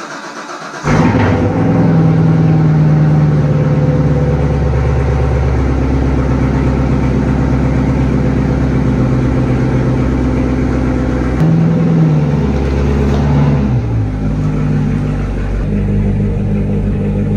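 2015 Corvette Z06's supercharged 6.2-litre LT4 V8 on a cold start, flaring loudly as it catches about a second in and then running at a loud, steady fast idle. Its note changes a couple of times near the end as the car moves off.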